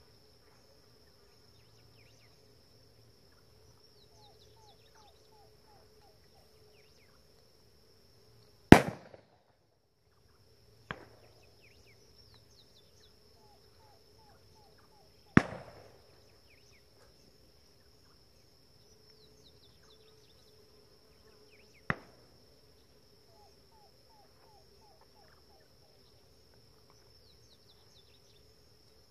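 Four shotgun shots at doves, two loud and two quieter, about nine, eleven, fifteen and twenty-two seconds in. A steady high insect drone and repeated chirping run behind them.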